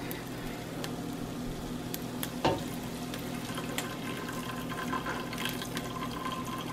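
Thin stream of cloudy water poured from a glass into a stainless-steel pot of cooked ramen noodles, trickling onto the noodles. A single sharp knock about two and a half seconds in.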